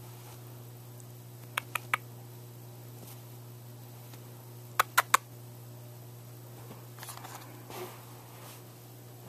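A kitten playing on a fabric couch: two quick sets of three sharp clicks, the second set louder, then soft rustling near the end as a hand strokes its fur, all over a steady low hum.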